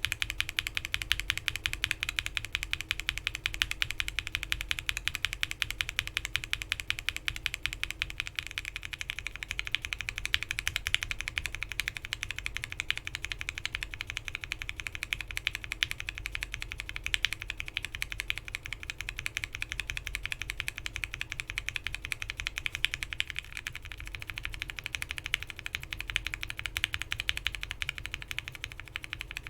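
Continuous fast typing on a custom mechanical keyboard: a steady stream of key presses on lubed linear Gateron Milky Yellow frankenswitches with 67 g springs, PBT keycaps and an FR4 plate. The switch build changes twice along the way: first with a cream stem, then with an ink top housing, then with a Cherry top housing.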